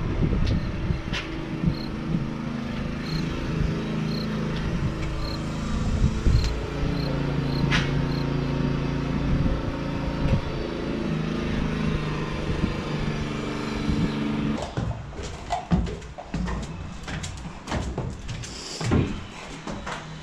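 A steady low rumble. About fifteen seconds in it gives way to a run of knocks and clattering footsteps on a wooden bell-tower stair.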